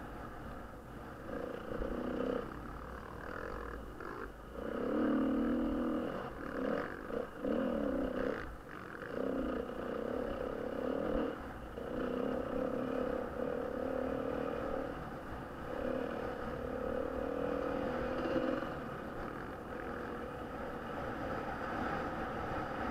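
Enduro motorcycle engine revving hard and easing off again and again while riding a dirt track, its pitch rising and dropping with throttle and gear changes. Steady low wind rumble is on the on-board microphone.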